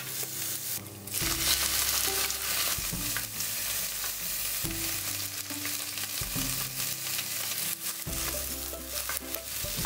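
Diced bell peppers and carrots sizzling in a hot nonstick frying pan while being stirred and pushed around with a spatula. The sizzle comes up loud about a second in and keeps on steadily.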